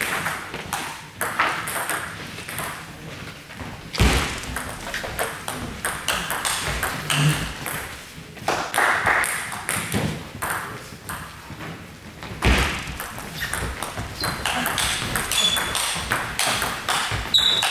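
Table tennis ball clicking back and forth off bats and table in rallies, with irregular ball clicks throughout and two louder knocks, about four and twelve seconds in.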